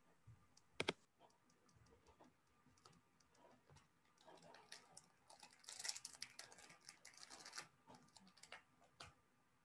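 Faint tapping of a computer keyboard being typed on, with a sharp double click about a second in and a quick run of keystrokes from about four to eight seconds in.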